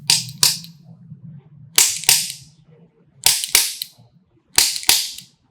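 Sharp percussive slaps in quick pairs, four pairs about a second and a half apart, each impact loud with a short hissy tail.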